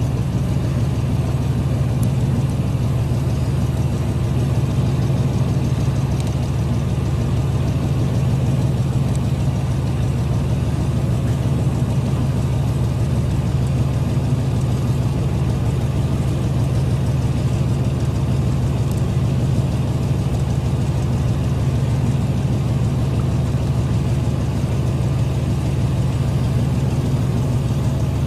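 Fishing boat's engine running steadily at low revs, a constant low hum.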